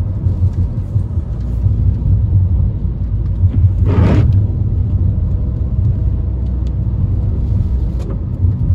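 Steady low road and wind rumble inside a moving car's cabin in a rainstorm, with one swish of the windshield wiper across the wet glass about four seconds in. A few light taps of rain hit the windshield.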